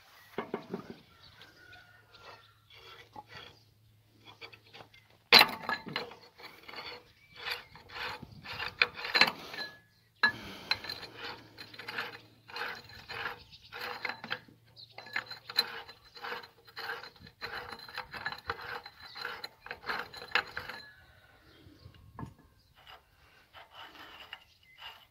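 Metal hand-tool work on a ZIL truck's rear wheel hub: a sharp metallic knock about five seconds in, then dense rapid clicking and scraping of metal on metal, broken by a brief drop-out near the middle. A low steady hum runs under the first half or more.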